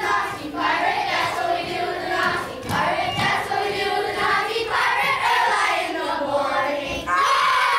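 A group of children singing together. About seven seconds in the voices grow louder into one long held note that slowly falls in pitch.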